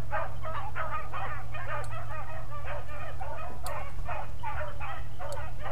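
A pack of beagles baying while running a rabbit: many short overlapping yelps, several a second, without a break. A steady low rumble lies underneath.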